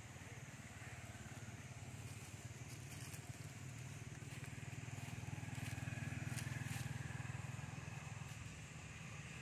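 Low hum of a distant engine, swelling to its loudest a little past the middle and easing off near the end, with a few faint crackles over it.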